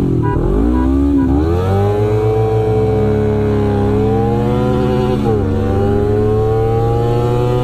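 Honda CBR250RR's parallel-twin engine at full throttle from a standing start, pitch climbing hard through the gears. The pitch drops quickly at two upshifts, about a second in and about five seconds in.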